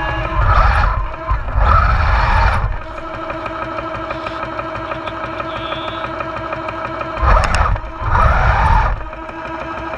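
Radio-controlled Panther tank model running, its simulated engine sound from the onboard sound unit holding a steady note. It swells into louder bursts of revving and drive-motor noise twice near the start and twice near the end as the tank drives and turns.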